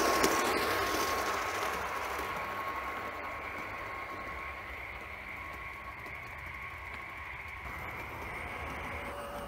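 1:32 scale model Burlington Zephyr running on garden-railway track: its wheel and motor noise fades over the first few seconds as it moves away, then stays low and steady with a thin steady whine.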